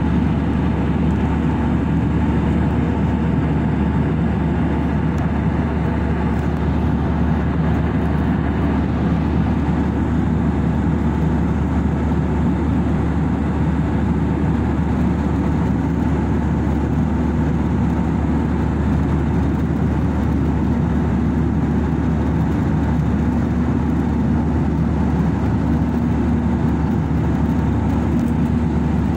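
Steady cabin noise of an Airbus airliner in flight, the low drone of its jet engines and rushing air heard from a window seat over the wing.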